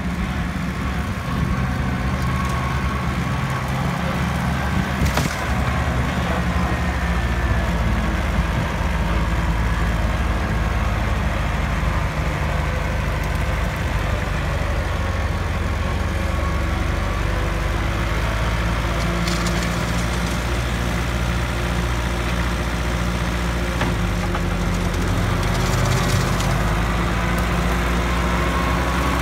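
Kubota diesel tractor running steadily while driving a rear-mounted mower through tall grass and weeds.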